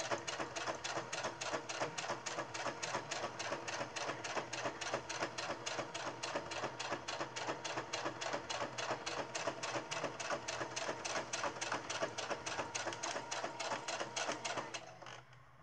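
Electric domestic sewing machine stitching continuously at a fast, even rhythm, the needle mechanism clicking with every stitch. It stops abruptly about a second before the end.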